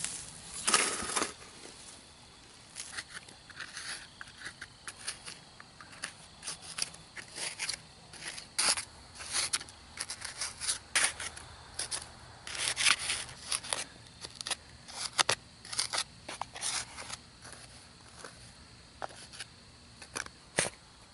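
A shovel throws out a clod of sod and soil about a second in, then a small hand trowel scrapes and digs through sandy clay soil around a buried aluminum cast, in short, irregular scrapes.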